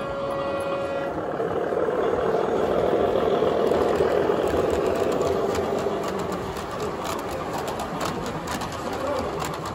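0 gauge model diesel locomotive and its rake of coal hopper wagons running past, the rumble of motor and wheels on track swelling as it passes close and then easing off. There is a brief steady tone in the first second and a run of sharp clicks near the end.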